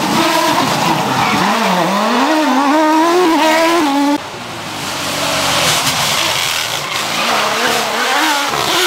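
Small rally hatchback engines revving hard at high rpm, pitch climbing and dropping with gear changes and lifts. About four seconds in, the sound cuts abruptly to another car whose engine builds up as it approaches.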